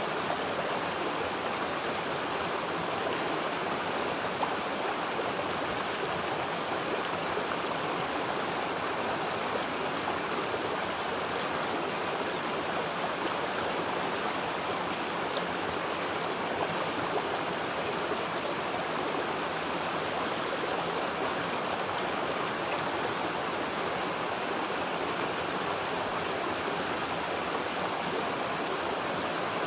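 Steady rush of running water, even and unbroken, with no distinct splashes or other events.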